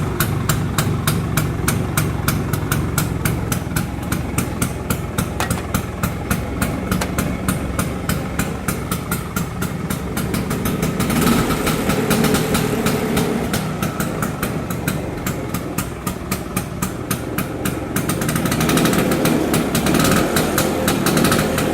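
1965 Vespa Super 150's single-cylinder two-stroke engine idling with an even, slow putter. The revs pick up briefly around the middle and again near the end.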